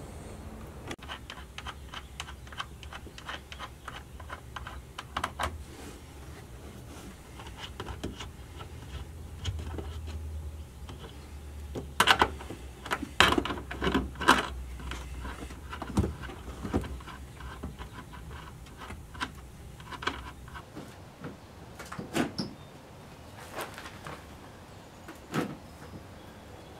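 Scattered clicks, rattles and plastic knocks of hands removing the stock taillight of a 2013 Scion FR-S: working at its fasteners and connector from inside the trunk, then easing the light unit off the body. A cluster of louder knocks comes about halfway through.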